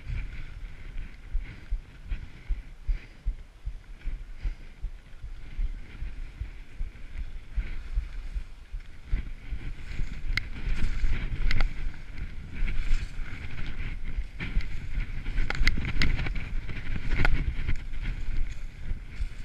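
Skis sliding and scraping over snow, with wind buffeting the microphone and scattered sharp clicks and knocks. It gets louder and rougher about halfway through, as the skier moves onto the steeper slope.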